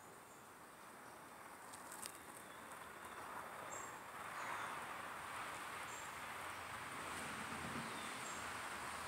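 Insects trilling steadily in the summer trees, a thin high note with short high chirps every second or so. A soft rushing noise swells in about four seconds in and holds.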